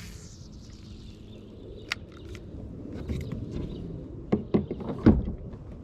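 A few sharp knocks and clunks of handled gear against a small paddle boat, the loudest three close together near the end, over a steady low wind rumble on the microphone.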